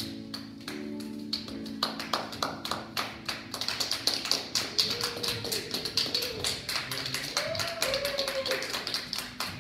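The last held note of a children's choir song fades in the first second or so. Then a small group claps, with each clap distinct, and a voice calls out twice in the middle.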